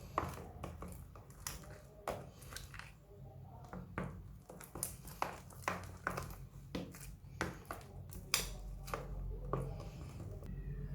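Slime being worked by hand, giving irregular sticky pops and clicks over a low steady hum.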